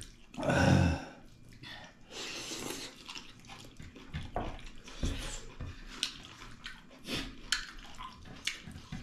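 Wet eating sounds of people eating dal and pork trotters by hand: chewing, lip smacks and slurps, with many short sharp clicks and a louder burst about a second in.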